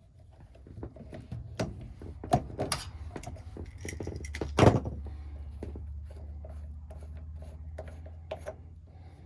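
Tools and parts being handled: irregular clicks, knocks and rubbing, with the loudest knock about four and a half seconds in. A low steady hum starts at about the same time and runs on beneath the handling.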